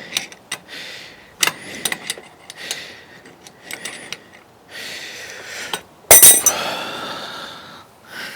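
Metal tools clinking and clicking against a bearing puller clamped on a bicycle crank arm, then a loud metal clang about six seconds in that rings on for a second or two.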